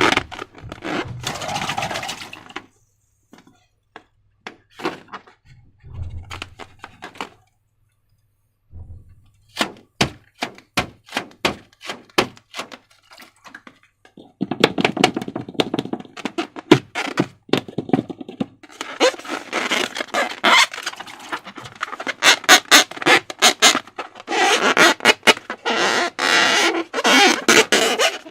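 Slime being squished and stretched by hand, giving wet, sticky clicks and crackling squelches. A run of separate sharp clicks comes in the middle, with denser crackling toward the end.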